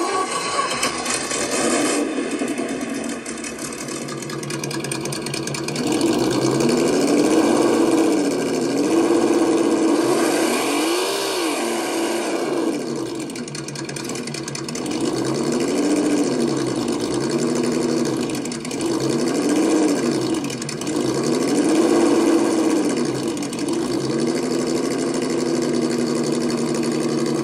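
WonVon engine sound simulator playing a simulated engine through its small speaker. It idles steadily at first, then from about five seconds in revs up and falls back about ten times.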